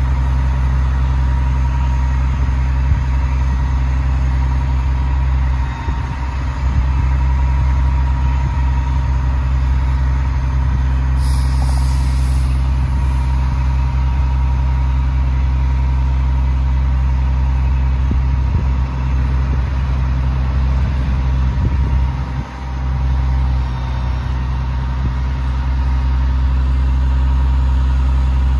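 The Cummins ISM 400 turbo-diesel engine of a Western Star crane truck runs steadily with a low drone, driving the hydraulic crane while its boom swings and lowers. A brief hiss comes about eleven seconds in.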